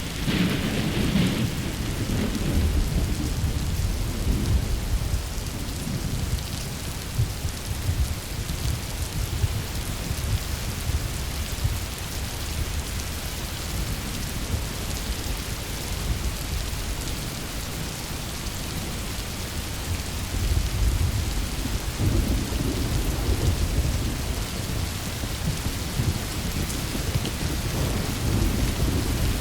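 Rainstorm: steady heavy rain with rolling thunder, the deep rumbles swelling in the first few seconds, again about two-thirds of the way through and near the end.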